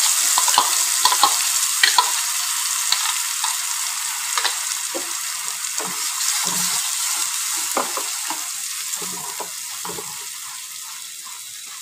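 Spinach-and-tomato paste sizzling in hot oil in a non-stick pan, just poured in, with a spatula scraping and clicking against the pan as it is stirred. The sizzle is loudest at first and dies down steadily.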